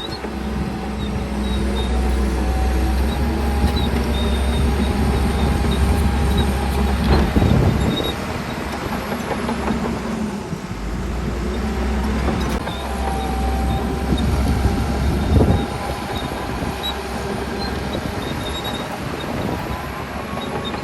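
Heavy diesel earthmoving machinery working: a bulldozer's engine runs hard with a deep rumble in two long spells, each ending with a sharp metal clank, with clattering of tracks and steel throughout.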